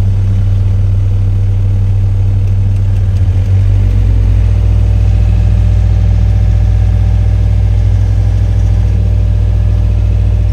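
LiuGong excavator's diesel engine running steadily while the boom and bucket are worked; the engine note changes about three and a half seconds in.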